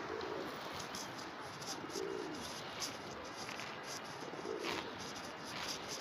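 Feral pigeons cooing: three low coos about two seconds apart, over a steady outdoor hiss with a few light clicks.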